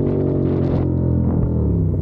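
CFMOTO 450SR's parallel-twin engine running steadily under way, its pitch falling near the end as the throttle is eased.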